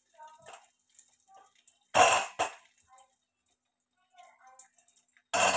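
A person coughing: two short coughs in quick succession about two seconds in, and another near the end, over faint background voices.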